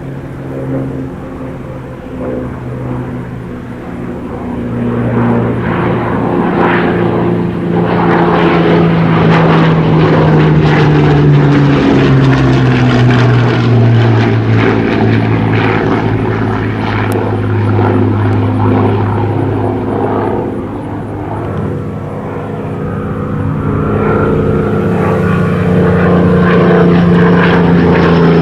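Rolls-Royce Merlin V12 piston engine and propeller of a British WWII warbird flying past, a steady drone that grows louder over the first several seconds. Its pitch drops as the aircraft goes by about halfway through. It fades a little, then grows loud again near the end as the aircraft comes round.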